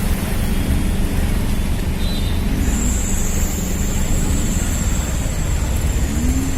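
Steady low rumble of motor traffic on a road, with a thin high whine starting about two and a half seconds in.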